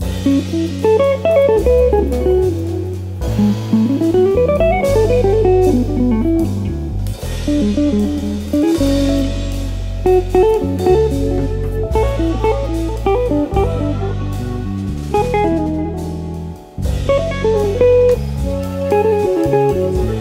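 Band music without vocals: an electric guitar plays a winding melodic lead line over electric bass and a drum kit.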